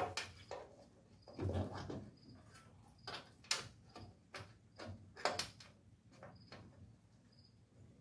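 Sheet-metal replacement cab corner panel scraping and knocking against the truck cab as it is pushed and shifted by hand to fit the cut-out opening. A string of separate scrapes and clicks, one longer scrape about a second and a half in, thinning out in the last couple of seconds.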